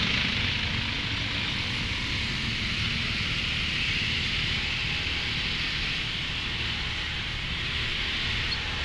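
Steady road-traffic noise: a continuous hiss of wind and road over a low engine rumble, with no distinct events.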